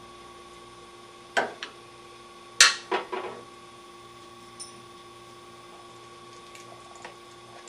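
Metal tools and parts clinking and knocking a few times while being handled, the loudest about two and a half seconds in, over a faint steady hum.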